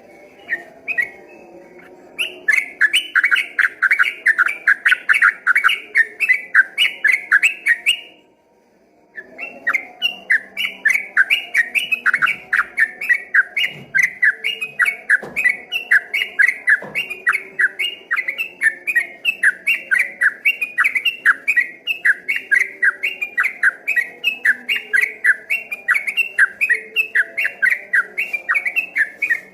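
Yellow-vented bulbul singing a long, fast run of repeated whistled notes, about four a second. The run breaks off briefly about eight seconds in, then carries on.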